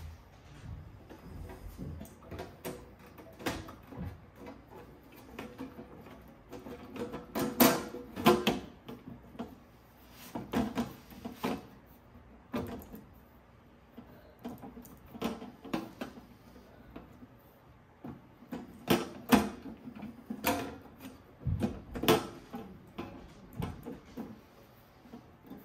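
The A&D GX-7100LTD cassette deck's top cover being handled and fitted onto the chassis: irregular knocks, clicks and scrapes that come in a few clusters, the loudest about 8 s, 11 s and 19 to 22 s in.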